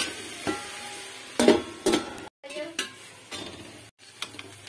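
Metal spatula scraping and knocking against a kadai while sliced bitter gourd and onions are stir-fried, several sharp knocks with a short metallic ring, the loudest about a second and a half in. A faint sizzle of oil runs underneath.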